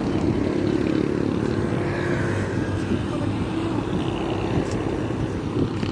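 A small engine running steadily, a continuous pitched hum.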